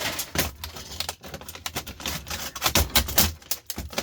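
Irregular run of sharp clicks, cracks and rattles as plastic housing and clips are broken off an appliance control circuit board.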